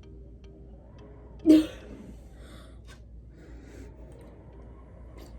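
A woman's short voiced gasp about one and a half seconds in, falling in pitch, then a couple of faint breaths.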